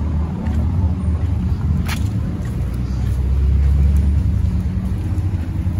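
Low rumble of street traffic that swells as a vehicle passes about three to four seconds in. A brief sharp click comes about two seconds in.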